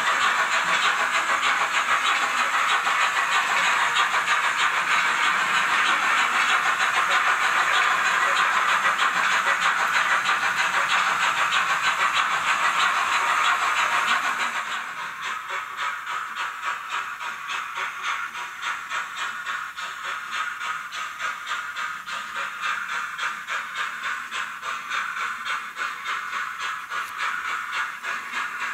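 Sound decoder of an HO-scale Roco BR52 steam locomotive model playing quick, steady steam exhaust chuffs through the model's small speaker. About halfway through, the sound becomes noticeably quieter and thinner.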